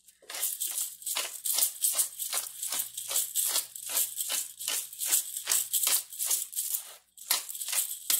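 A seasoning shaker shaken over a pot in quick rhythmic rattling shakes, about three a second, with a short pause near the end.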